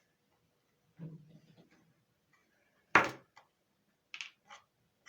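A soft thud about a second in, then a loud, sharp knock about three seconds in, followed by two short, light scraping or rustling sounds: things being handled and set down on a hard surface.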